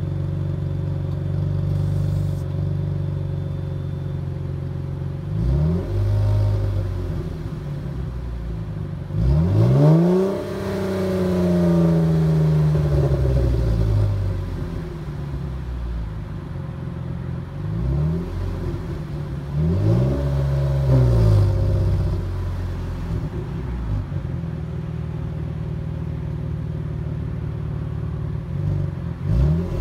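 Muffler-deleted 3.2-litre V6 of a 2015 Jeep Cherokee Trailhawk idling and revved several times. The biggest rev, about ten seconds in, climbs high and sinks slowly back to idle; a second clear rev comes about twenty seconds in, with short blips between.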